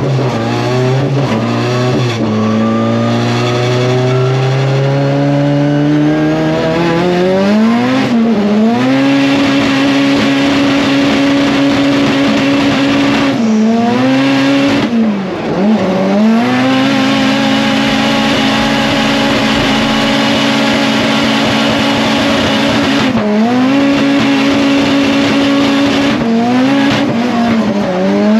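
Drift car's engine heard from inside the cabin on a track run. The revs climb for about the first eight seconds, then are held high and nearly steady with a few brief dips, over a hiss of tyre noise.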